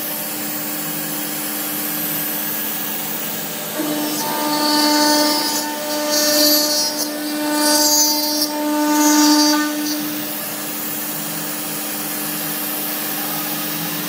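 CNC router spindle milling a pocket in a 12 mm aluminium plate with an end mill. Under a steady whine from the spindle, the cutting noise swells louder four times between about four and ten seconds in.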